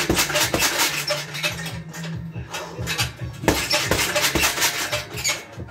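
Boxing gloves striking a hanging heavy bag: quick strings of jabs, each a sharp thud, coming in clusters with short pauses between.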